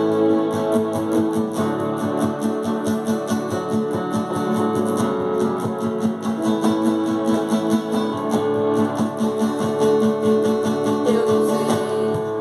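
Guitar strumming chords in the instrumental introduction of a Portuguese worship song, a steady rhythm of strokes under held chords.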